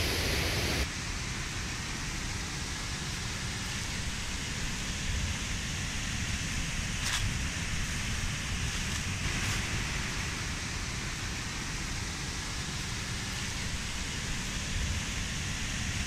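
Steady rushing of a stream and small waterfall, with wind rumbling on the microphone. In the first second a louder waterfall rush is heard, which cuts off abruptly.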